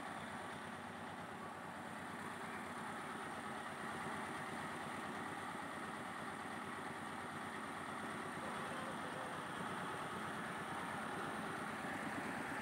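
Mobile rice mill's engine-driven milling machinery running steadily while it mills rice.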